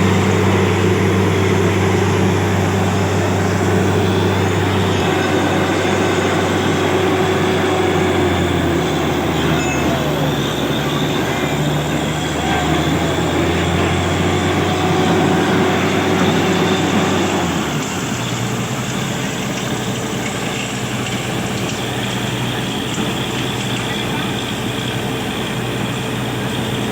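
Borewell drilling machine's motor running with a steady hum, its pitch shifting a few times, then settling to a quieter hum about 18 seconds in.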